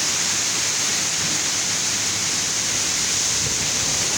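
Heavy downpour of rain, a steady, even rush of noise with no break.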